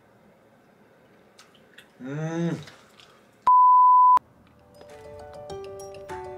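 A man's short drawn-out vocal sound, then a loud steady single-tone censor bleep lasting under a second, then light background music with plucked notes and a stepping-down bass line begins.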